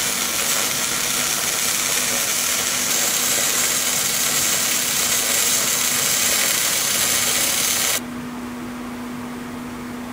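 MIG/MAG welding arc crackling steadily as a fillet weld is run on 3 mm carbon steel with 0.8 mm wire at about 160 amps; it stops abruptly about eight seconds in, leaving a steady low hum.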